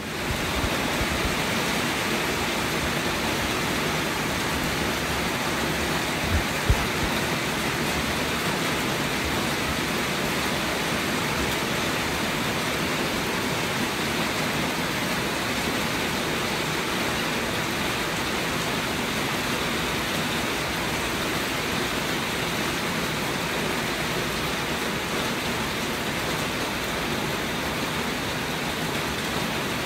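Steady rain, an even unbroken hiss, with a couple of short low thumps about six and a half seconds in.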